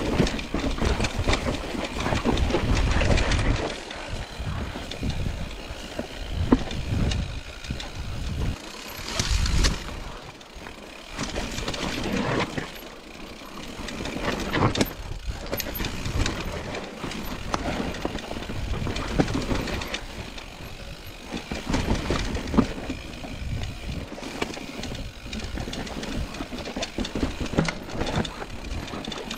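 Mountain bike ridden over a rough, rocky trail: tyres on stones and the bike rattling, with irregular knocks and clatters. Heavy low rumbles swell and fade at times.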